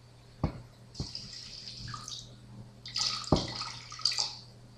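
Water poured into a pot of rice in two short pours, with three sharp knocks of cookware.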